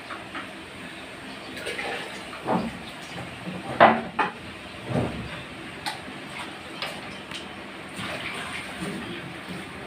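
Pipe wrench clinking and scraping on the metal pipe fitting of an electric water pump as it is unscrewed, with a few sharp metallic knocks, the loudest about four seconds in, and water trickling from the loosened joint.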